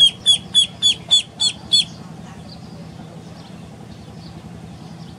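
Ducklings peeping: a run of seven loud, high, short peeps about three a second, each dropping slightly in pitch, then fainter peeps continuing after about two seconds.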